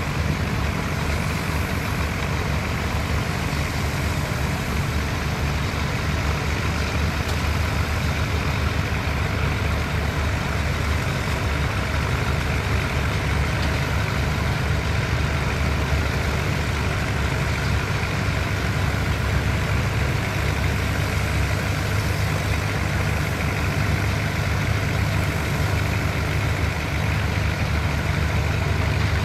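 Heavy construction machinery engines running steadily, a constant low diesel drone with no pauses or sharp events.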